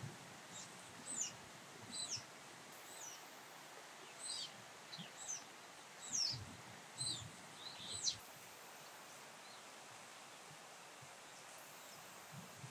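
Brown-eared bulbul calling: a run of short, high notes, each sliding downward, about a dozen of them over the first eight seconds, then it stops.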